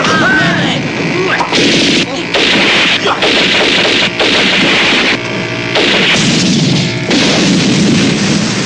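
Action-film gunfight soundtrack: gunshot and explosion sound effects, loud and dense, coming in bursts of about half a second to a second with brief gaps between them.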